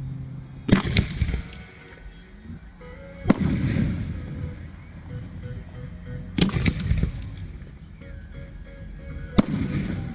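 Four fireworks shells bursting overhead about three seconds apart, each a sharp boom followed by a fading rumble and crackle, over background music.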